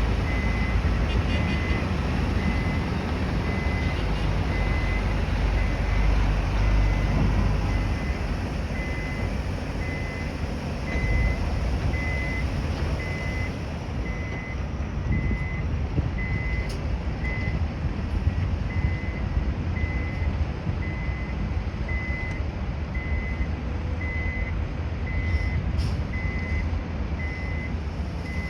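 A construction vehicle's reversing alarm beeping steadily about once a second, over the low rumble of heavy engines running on the site.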